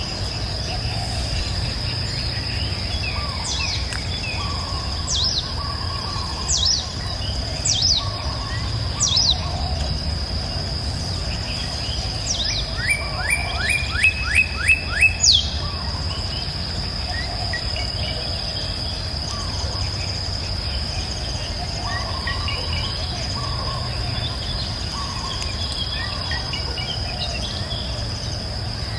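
Songbirds calling over a steady high insect drone: a short falling call repeated every second or so in the first third, then a quick run of about eight sharp notes around the middle, the loudest part, with softer lower calls scattered throughout and a steady low rumble underneath.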